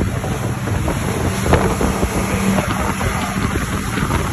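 Crab boat's engine running steadily under way, a low even hum, with wind buffeting the microphone and water rushing past.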